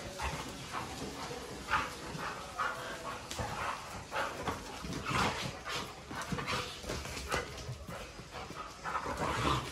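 A Doberman and a black-and-white dog play-fighting: many short, irregular dog noises and scuffling, with no steady rhythm.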